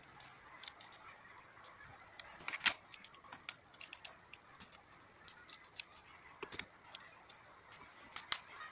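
Scattered light clicks and ticks of a steel hex key working small screws in the plastic end cap of a drill housing, with handling taps; the sharpest click comes about two and a half seconds in.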